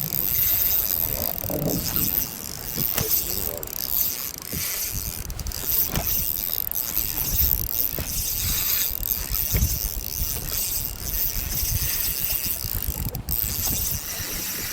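Fishing reel being cranked and clicking while a big fish is played, over a steady rumble of wind and waves, with scattered knocks.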